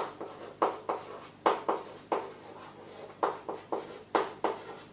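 Chalk writing on a chalkboard: about ten sharp taps and short scratches as strokes are put down, unevenly spaced.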